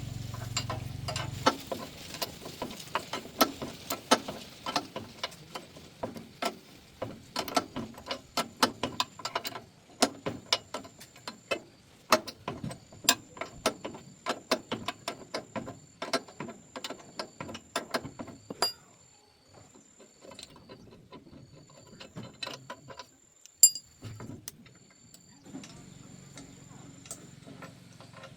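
Irregular metallic clicks and knocks of hand tools working on machine parts during a repair, a couple a second, thinning out after about 19 seconds. A low hum sounds under them at the start and again near the end.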